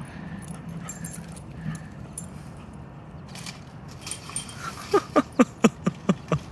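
A dog giving a quick run of about eight short yelps, each falling in pitch, over the last second and a half, with a faint steady low hum beneath.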